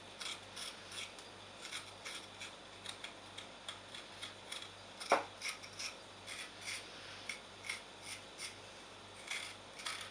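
Fresh ginger root having its thin skin scraped off in short, quick strokes, about three a second. About five seconds in there is one sharper knock, louder than the scraping.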